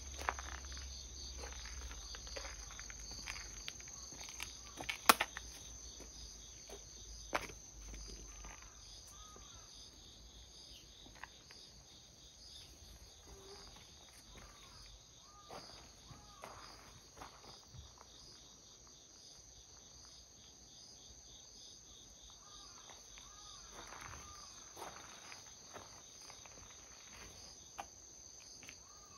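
A steady, high-pitched chorus of insects running throughout, with light footsteps and a few sharp clicks on a gravel path, the loudest about five seconds in and another about seven seconds in.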